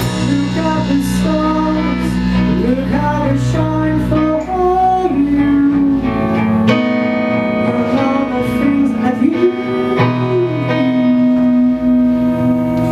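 Music with guitar and singing played very loud through a car sound system, heavy in the bass.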